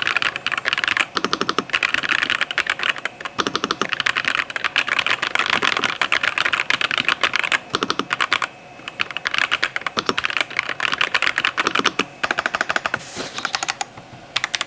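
Typing on a mechanical keyboard fitted with black keycaps: fast runs of key clacks, broken by short pauses about a second, eight and twelve seconds in.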